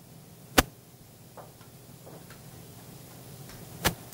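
Two sharp clicks about three seconds apart, with a few faint light taps between them, over a quiet room hum.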